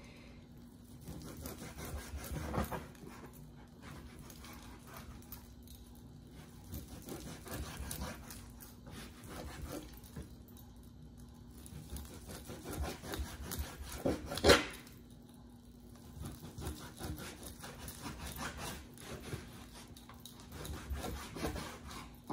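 Chef's knife sawing through raw beef skirt steak on a plastic cutting board: repeated quiet slicing strokes with the blade knocking the board. One sharp knock about two-thirds of the way through is the loudest sound. A faint steady hum runs underneath.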